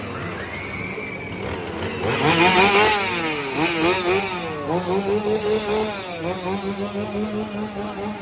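Scare-actor's chainsaw engine revving, its pitch swinging up and down again and again, loudest about two to three seconds in.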